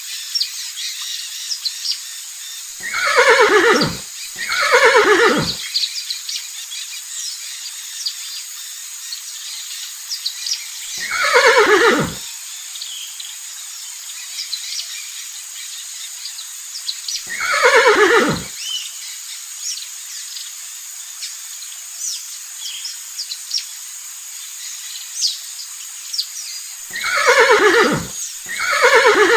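Horse neighing six times. Each whinny lasts about a second and falls from a high squeal to a lower tone. The calls come as a pair early on, two single calls, and another pair near the end, over a steady high hiss with faint chirps.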